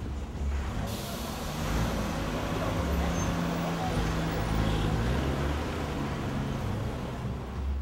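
Street traffic noise with a bus engine running as it drives past close by.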